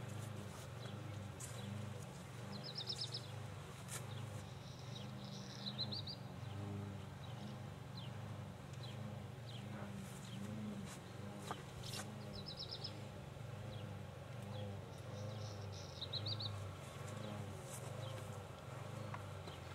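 A small bird calling in short high trills, four times over the stretch, over a steady low hum and a few faint clicks.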